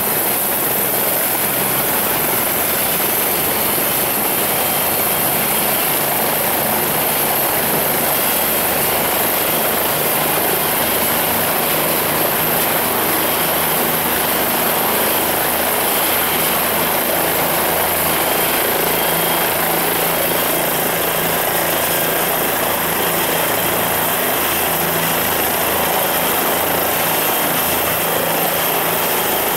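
Helicopter running on the ground at close range, its main rotor spinning: a steady high turbine whine over a constant rotor and engine drone, with no change in level.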